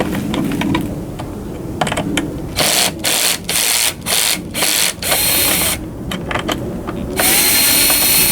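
Cordless drill/driver backing out dashboard screws: a few handling clicks, then several short trigger bursts and two longer runs near the end.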